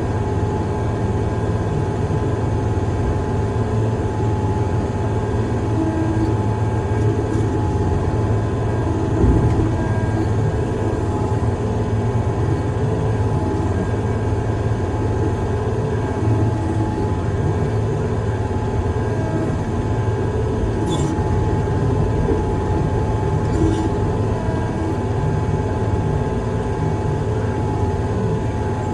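Heavy construction machine's engine running steadily under a constant low drone, with a few faint short clicks about two-thirds of the way through.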